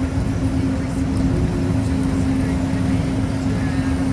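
Disneyland Monorail train running at speed, heard from inside the cabin. A steady low rumble carries a single constant hum from the electric drive.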